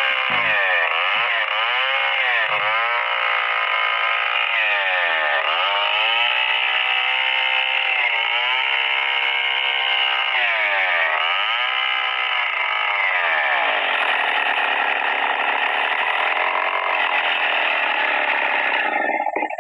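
STIHL 070 two-stroke chainsaw ripping lengthwise through a Merbau log at high throttle. Its engine note dips and picks back up several times as the bar bogs under load, then cuts off abruptly near the end.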